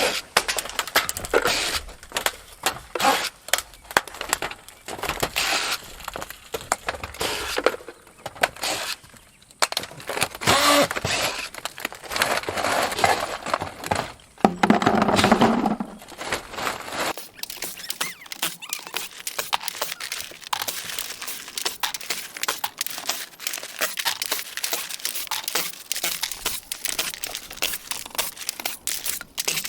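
Old asphalt shingles being pried and torn off the roof deck: a dense, continuous run of crackling, scraping and tearing, with a louder burst about halfway through.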